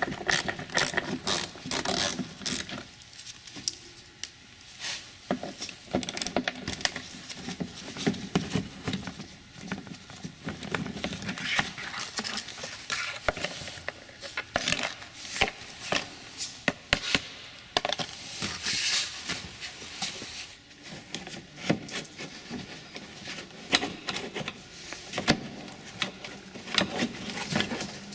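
Irregular clicks, knocks and rubbing from hand work on a car's plastic mud guard: a socket wrench on its screws and the plastic guard being handled and pulled from the fender liner.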